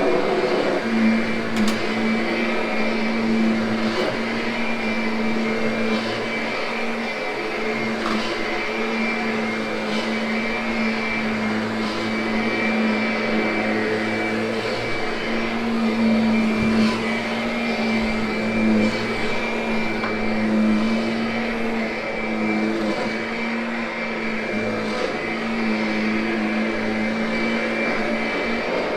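Kirby upright vacuum running steadily as it is pushed over carpet: a continuous motor hum with a thin high whine above it.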